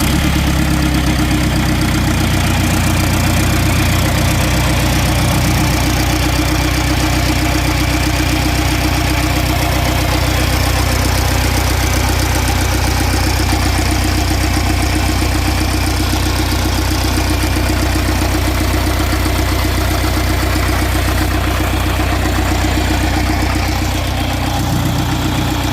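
A freshly rebuilt engine idling steadily just after start-up, with an even, unbroken running note.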